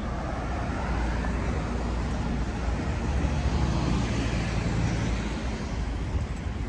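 Steady road traffic noise: the low rumble of vehicle engines and tyres, a little louder about three seconds in.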